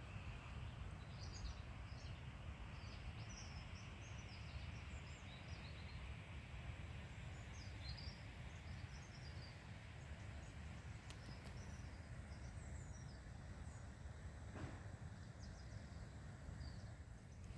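Small birds chirping in many short calls over a steady low rumble. The birds fall quiet about two-thirds of the way through.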